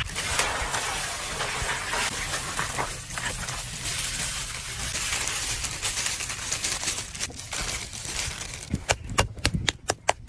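Food frying in a pan: a steady sizzling hiss, then a quick run of about eight sharp clinks near the end.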